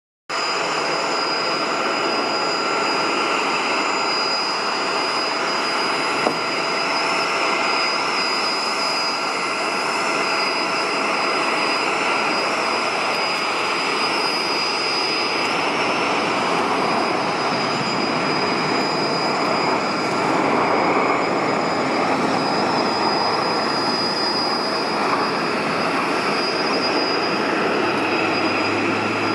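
Boeing 747-8's four GEnx-2B jet engines running as it rolls along the runway after landing: a steady rush of noise with a high, even whine.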